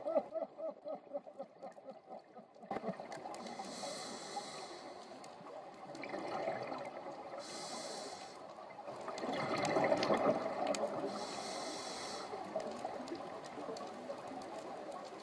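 Scuba diver breathing through a regulator underwater: exhaled bubbles gurgling, with three short hissing breaths and a louder swell of bubbles in the middle.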